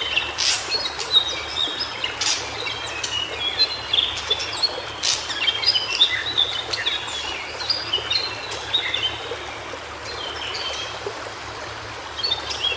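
White-browed shortwing singing: a rapid, jumbled warble of short high notes, tumbling up and down, over a steady background hiss. The song thins out after about ten seconds.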